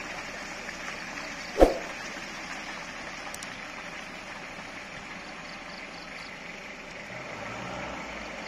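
Mitsubishi L300 pickup's engine running steadily as it drives up a muddy slope, with one sharp knock about a second and a half in.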